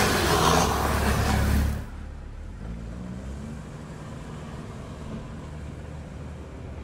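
Sherp amphibious ATV's diesel engine running hard and rising in pitch as it drives. About two seconds in, the sound drops suddenly to a quieter, steady engine hum with rushing noise.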